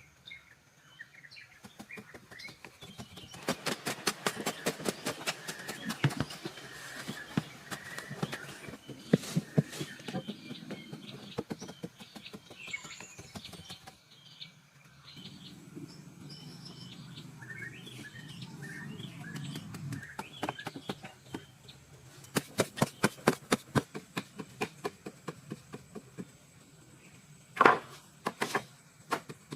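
Bursts of quick, evenly spaced knocks, about five a second, with one louder hit near the end and bird chirps in between.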